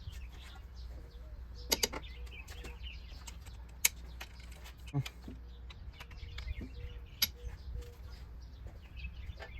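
A few sharp clicks and snaps from a bar and socket as a cylinder head bolt on a Toyota 2.4 engine is turned a further 90 degrees, the loudest about two seconds in and near four seconds, over a low hum. Birds chirp faintly in the background.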